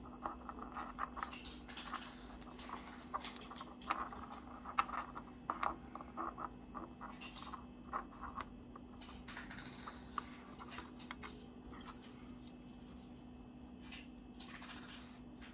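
Small clicks, taps and scratchy rustles from fingers handling a tiny circuit board, thin wires and a push button, over a faint steady hum. A short rustle comes near the end.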